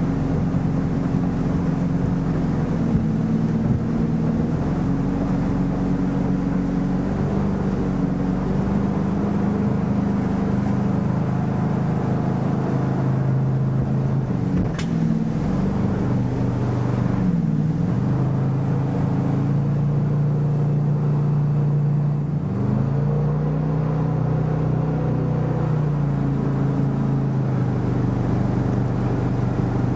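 A motorboat's engine running under way on a fast river, with water rushing past. Its pitch dips and climbs back a little past halfway, then rises again a few seconds later.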